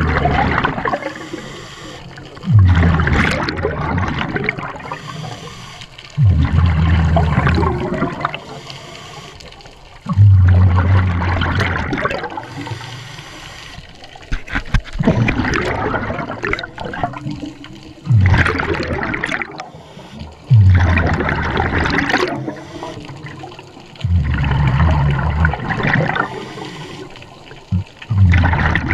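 Scuba diver's exhaled air bubbling out of the regulator in regular bursts every few seconds, each a loud low gurgling rush that fades off, with quieter breathing between.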